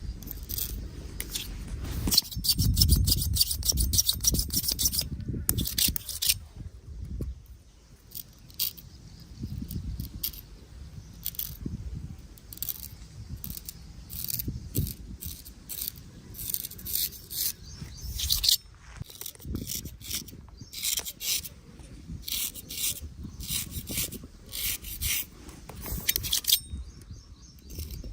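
Straight razor scraping over skin and stubble in short, repeated strokes, with a quick dense run of strokes about two to five seconds in.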